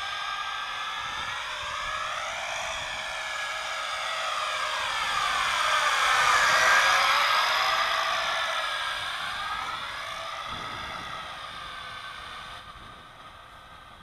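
JJRC H26 quadcopter's motors whining, the pitch rising and falling as the throttle changes. It grows louder to a peak about halfway through, then fades away.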